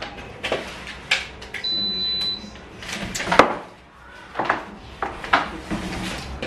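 Knocks and clicks of an air fryer being handled on a counter, the loudest about three and a half seconds in, with one short electronic beep about a second and a half in as it is plugged in and powers on.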